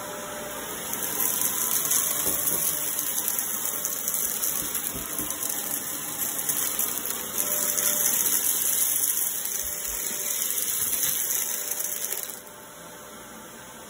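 Shark vacuum cleaner running on carpet. From about a second in it turns to a louder rushing hiss with dense rattling and crackling as it sucks up beads, sequins and glitter. Near the end it falls back to a steady motor hum.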